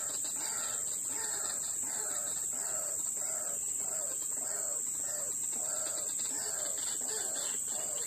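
White-breasted waterhen calling a croaking, repeated 'kru-ak', about two calls a second, each dropping slightly in pitch, over a steady high-pitched whine.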